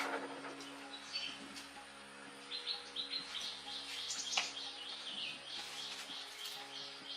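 Small birds chirping, short high calls repeated about three times a second through the second half, over a faint steady hum. There is one sharp click in the middle.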